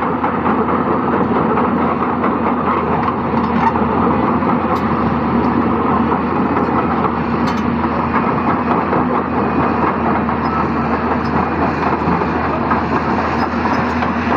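Hyundai 220-class excavator's diesel engine running steadily with a constant hum under a dense, even rushing noise.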